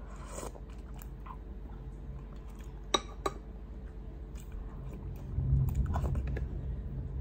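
A person eating: two sharp clicks of a utensil on a plate about three seconds in, then chewing close to the microphone.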